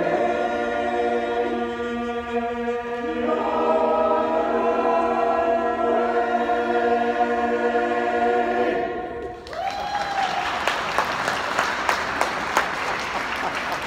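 Men's barbershop chorus singing a cappella in close harmony, holding a long final chord that stops about nine seconds in. Audience applause follows.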